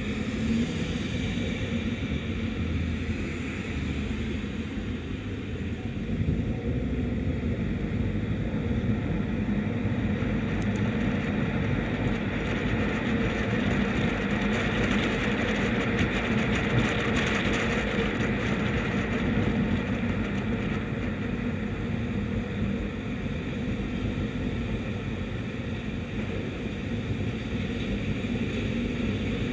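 Steady road and wind noise of a 2017 Audi Q7 driving: tyre rumble on the pavement and air rushing past a microphone mounted on the outside of the body beside a wheel, swelling a little in the middle.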